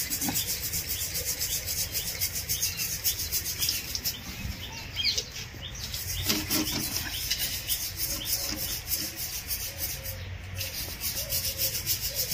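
Rapid, even rubbing and scraping strokes as a fresh coat of clay-cement-sand plaster is smoothed over a mud stove (chulha).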